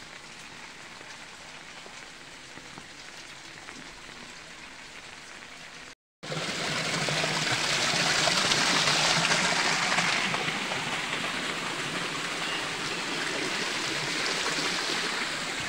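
Light rain falling steadily. After a short break about six seconds in, runoff rainwater rushes over stone steps and along a path, much louder, loudest soon after the break and easing slightly toward the end.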